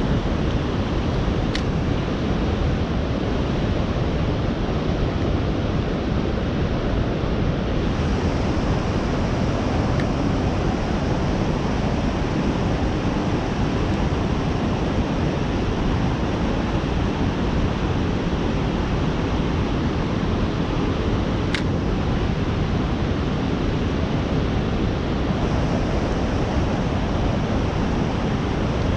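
Steady rushing of a flowing river, with two faint sharp ticks, one near the start and one about two-thirds of the way through.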